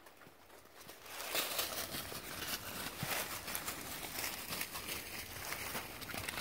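Dry fallen leaves crunching and rustling underfoot as feet tramp through deep leaf litter. The sound starts about a second in and continues as a dense run of crackling rustles.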